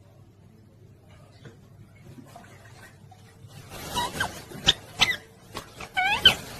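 Pet parrot chirping: a string of short, squeaky calls that bend up and down in pitch, starting about halfway through after a quiet first half, with a few sharp clicks among them.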